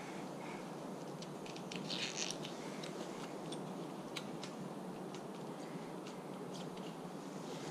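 Small clicks and a brief scrape about two seconds in, from hands and an Allen key working an STI shifter's clamp on drop handlebars, over a steady background hiss.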